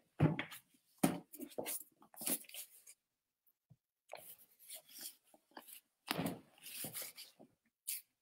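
Scattered short rustles and bumps of a thick hardcover book being picked up and handled.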